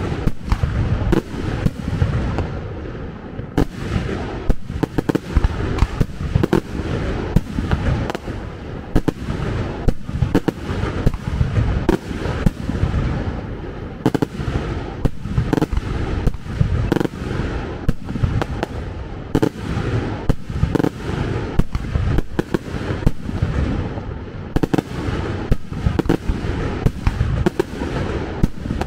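Fireworks going off in a dense, unbroken barrage: sharp bangs several a second over a continuous low rumble.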